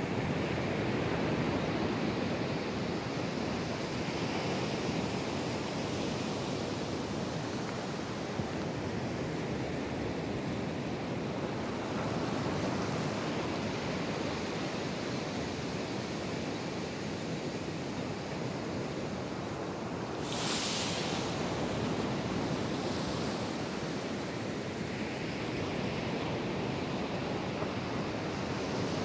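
Ocean surf breaking offshore and washing up the shallow beach, a steady rushing wash that swells every several seconds. A brief sharper hiss comes about two-thirds of the way through.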